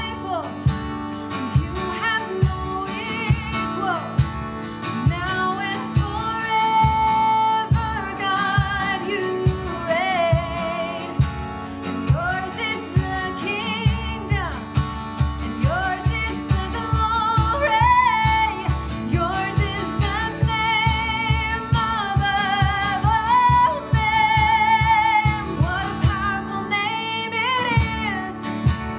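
A worship song with a singing voice over strummed guitar and a steady beat.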